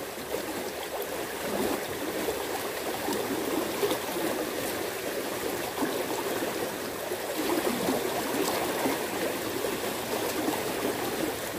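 Fast-flowing water of a small irrigation ditch rushing and babbling steadily.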